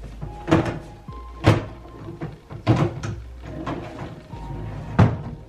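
A wooden drawer of an IKEA dresser being slid into place, with four sharp knocks of wood on wood as it bumps and seats.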